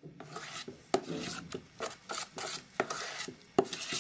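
Metal spoon stirring pancake batter in a steel pot, scraping and clinking against the pot's sides and bottom in quick, irregular strokes, with a sharper knock about three and a half seconds in.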